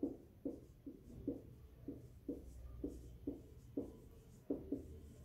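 Dry-erase marker writing on a whiteboard: short, quiet strokes and taps of the tip on the board, about two a second, as words are written out.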